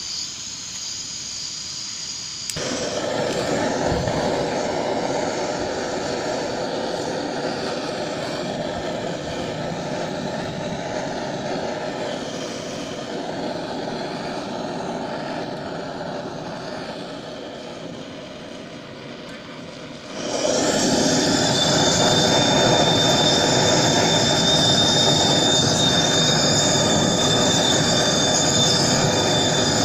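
Propane turbo torch burning with a steady jet-like hiss of flame. It gets louder about two and a half seconds in, and much louder about two-thirds of the way through, when a thin steady whistle joins it: the torch turned up high.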